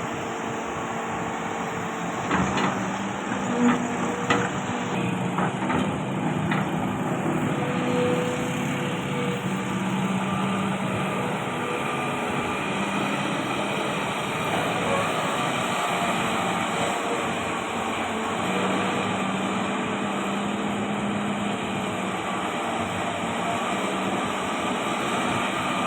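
Excavator's diesel engine running steadily, with a few sharp knocks about two to four seconds in.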